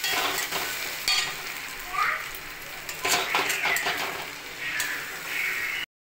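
Eggs sizzling as they are scrambled in a steel kadai, with a metal spatula scraping and knocking against the pan every second or so. The sound cuts off suddenly near the end.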